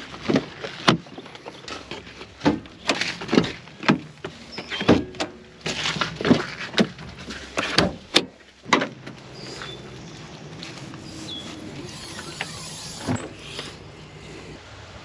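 A string of sharp knocks and clunks, about a dozen over the first nine seconds, then a quieter steady background with a few faint squeaks.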